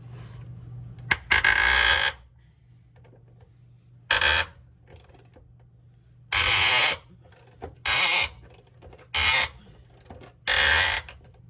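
Pneumatic impact wrench hammering on rusted body-mount bolts in six short bursts with pauses between, the bolts not yet breaking loose. A steady low hum runs underneath.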